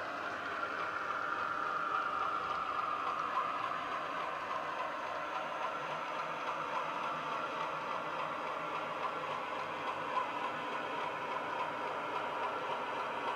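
Class 31 diesel engine sound from a LokSound 5 DCC sound decoder, playing through a flat sugarcube speaker inside a Hornby model locomotive as it runs slowly along the track. The engine note is steady and eases slightly lower in pitch.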